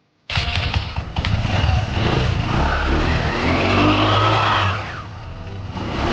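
Scooter engine running with its CVT belt drive turning. It starts abruptly, then is revved up and back down.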